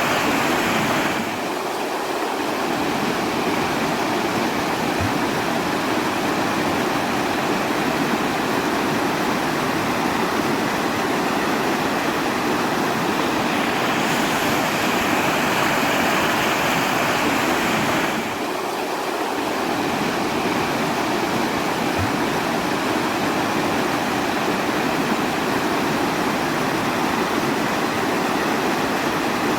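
Rushing water played as white noise for sleep: a continuous, even hiss with no separate events. The level dips slightly about a second in and again after about eighteen seconds.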